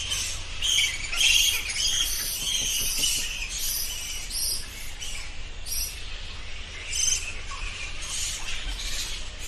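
Bats squeaking: many short, high-pitched chirps and squeaks, overlapping and irregular, over a faint low hum.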